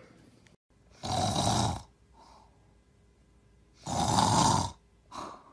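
Snoring: two loud, rasping snores about three seconds apart, each followed by a softer breath out.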